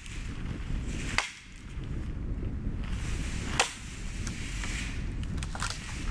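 Low rumble of wind on the microphone, broken by two sharp cracks, one a little over a second in and one past three and a half seconds, with fainter ticks near the end.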